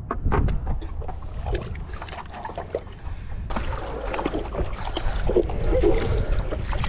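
Wind rumbling on the microphone over water splashing and sloshing as a stand-up paddle board is paddled and then waded beside in shallow water, with short splashes scattered throughout and busier sloshing from about halfway in.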